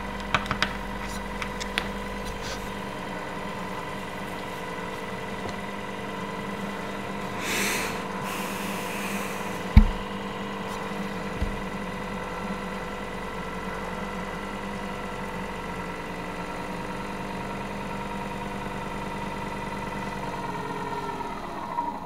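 Small 10 rpm DC gear motor driving a camera slider's belt: a steady multi-tone whine that slows and stops just before the end. The builder finds these motors too slow for the speed he wants. A few clicks sound near the start and a low thud about ten seconds in.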